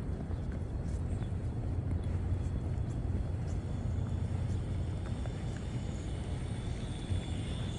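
Steady low rumble of distant city traffic. A faint high whine comes in near the end.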